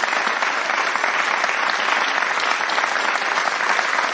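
Applause: many hands clapping together at once, a steady, dense clatter of claps.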